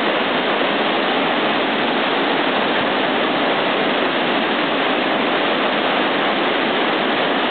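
River rapids: whitewater rushing steadily over rocks in a continuous, even roar.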